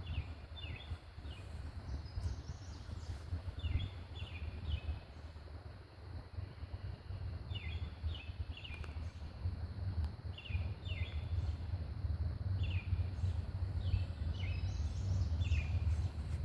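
Wind buffeting the microphone with a steady low rumble, while a bird calls over and over in short chirps, two or three at a time.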